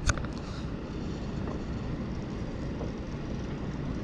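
Steady low rumble of wind buffeting the camera microphone, with a few light clicks at the very start as the rod and spinning reel are handled after the cast.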